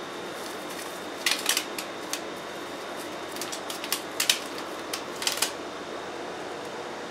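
Clicks and rattles of plastic lawn-mower parts and a small plastic bag of fittings being handled, in a few short clusters over a steady background hiss.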